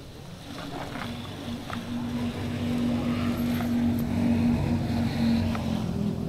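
A motor engine running with a steady hum over a low rumble, growing louder over the first few seconds as it comes closer, then holding.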